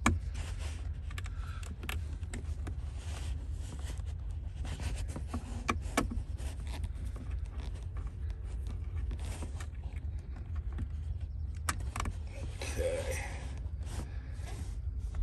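Small clicks and scrapes of a hand tool working the screw terminals of a car-audio amplifier as the power and ground wires are taken off, over a steady low rumble.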